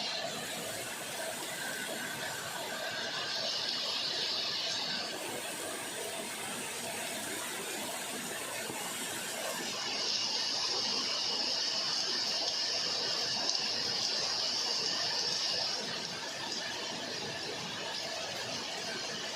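Heavy rain falling steadily. A high, shrill steady tone rides on top of it for about two seconds a few seconds in, and again for about six seconds in the middle, the loudest part.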